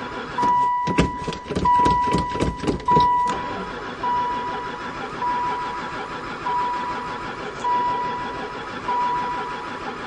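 A Chrysler van's starter cranking the engine in rhythmic pulses, about three a second, for some three seconds without it firing, which the owner puts down to no spark. A dashboard chime beeps steadily about once a second and goes on alone after the cranking stops.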